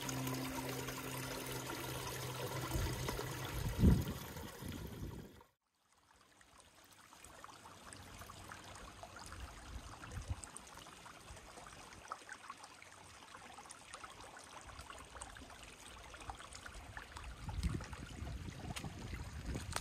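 Water trickling and running, as in a small stream. It cuts out suddenly about five and a half seconds in, then comes back quieter.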